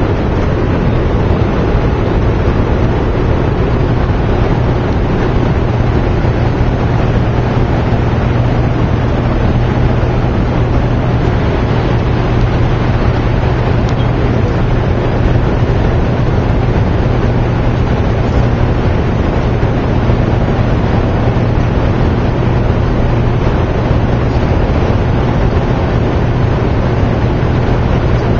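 Hoover Dam's hydroelectric generators running: a steady, loud machine drone with a deep even hum under a constant rushing noise.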